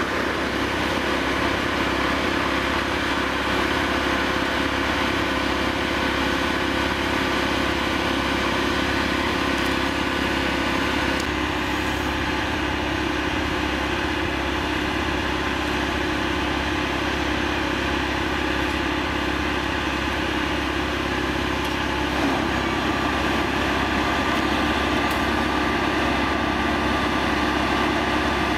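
Plasser & Theurer APT 1500 RA mobile rail welding machine's engine and power unit running steadily, a continuous machine hum whose tones shift pitch twice, about a third and two-thirds of the way through.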